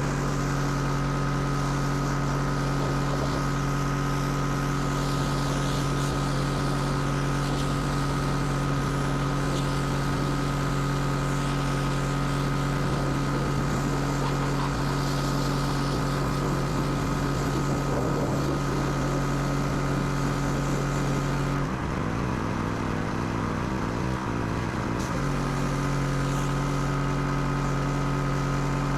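Pressure washer running steadily, its motor holding one pitch under the hiss of the spray. The pitch wavers and falls unsteady for a few seconds about three-quarters of the way through, then steadies again.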